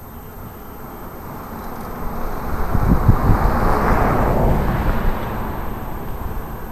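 A car passing on the street: a rushing noise that swells to its loudest about three to four seconds in and then fades away.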